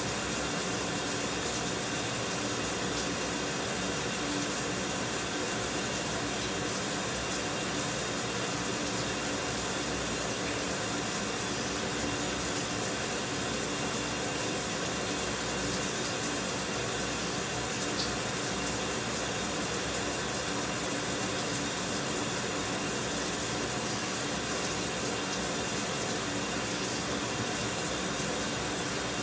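Shower running steadily, an even hiss of falling water with no change.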